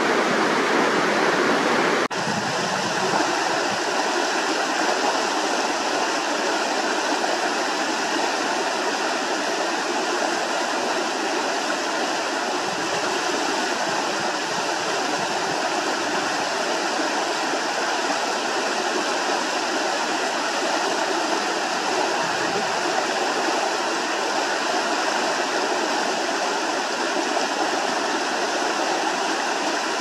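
Fast mountain creek rushing over rocks in small rapids: a steady, loud rush of water. The sound changes abruptly about two seconds in and then runs on evenly.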